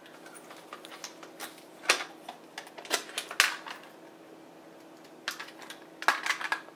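Scattered clicks and knocks of red plastic Notifier NBG-12LX fire alarm pull station housings being handled, with a few sharp taps in the middle and a quick run of clicks near the end.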